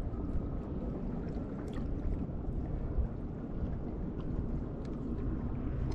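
Steady wind noise on the microphone over water lapping against a plastic kayak hull, with a few faint ticks.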